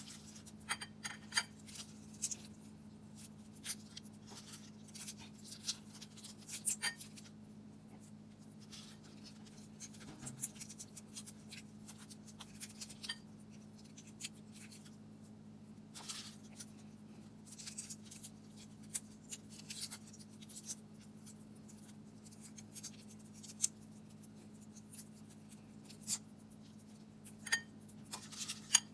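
Scattered small clicks, taps and crackles of hands working, irregular and short, over a steady low electrical hum.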